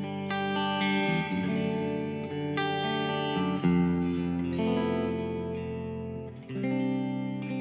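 Electric guitar played through an IK Multimedia X-Space reverb pedal on its Hall A preset. Sustained chords are struck every second or two and ring into each other with a big hall reverb tail.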